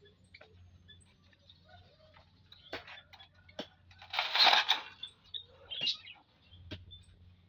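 Small finches (munias) in an aviary giving short high chirps, with scattered sharp clicks and a louder rustling rush about four seconds in.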